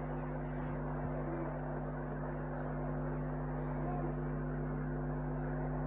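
Steady low mechanical hum with several constant tones and a soft even hiss, the room's background drone.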